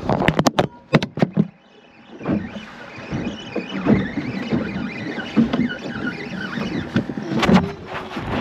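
Clicks and knocks of rod and tackle handling, then a wavering mechanical squeal, typical of a fishing reel's drag paying out line as a fish takes the bait, with more knocks near the end.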